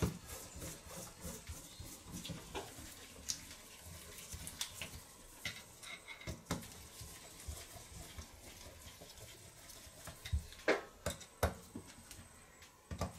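Light, scattered clicks and taps of small screws being started into a Solex carburetor's top cover and of the metal parts being handled, with a few sharper clicks near the end.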